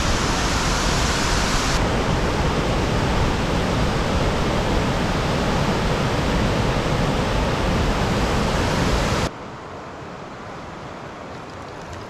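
Wide tiered waterfall pouring over rock ledges into a plunge pool: a loud, steady rush of falling water. About nine seconds in it drops suddenly to a much quieter steady hiss.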